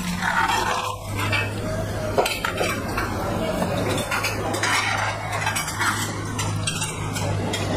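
A kitchen knife cutting fresh limes in half over a clay mortar, with irregular clicks and knocks of the blade. A steady low hum runs underneath.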